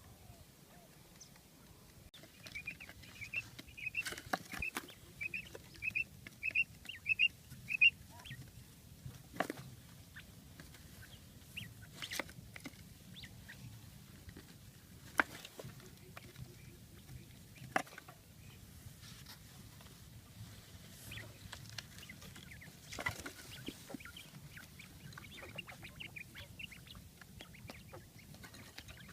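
A bird calling a quick run of short, high, repeated notes, two or three a second, for about five seconds, with scattered calls later. Several sharp clicks or knocks sound in between.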